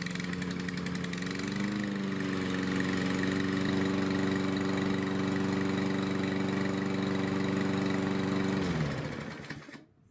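Briggs & Stratton engine of a Troy-Bilt TB110 push mower running steadily, picking up slightly in speed about two seconds in. Near the end it winds down and stops within about a second.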